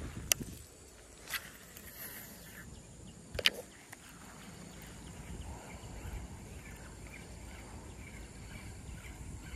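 A baitcasting rod and reel being handled: three sharp clicks in the first four seconds, the third the loudest. After that the reel is cranked, with faint light ticks about twice a second over a quiet outdoor background.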